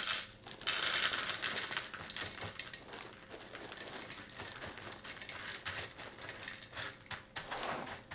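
Cap'n Crunch cereal being poured from its plastic liner bag into a bowl: a dense patter of small hard pieces with crinkling of the bag, heaviest in the first few seconds and then thinning out.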